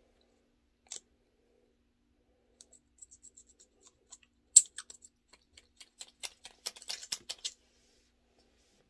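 Small plastic clicks and taps from a lip oil tube and its cap being handled and opened: one click about a second in, then a run of short sharp clicks that starts a little before halfway and comes faster near the end, with the loudest click about halfway through.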